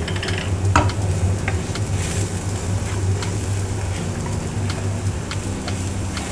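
Chopped onion, garlic and ground black pepper sizzling in butter in a frying pan, stirred with a wooden spoon that scrapes and taps the pan in scattered clicks, over a steady low hum.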